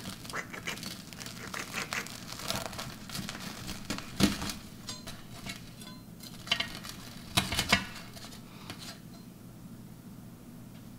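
Crusty baked bread of a stuffed sandwich being pulled apart by hand and cut with a knife, the crust crackling and tearing, with a few sharp knocks. The handling stops about two-thirds of the way in.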